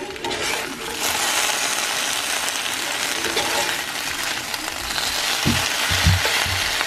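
Sliced raw potatoes and onion sizzling as they fry in a cast-iron skillet, with a few knocks of a spatula turning them in the pan near the end.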